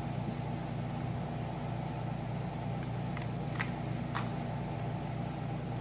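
Air conditioner running with a steady hum, with a few short clicks a little past halfway.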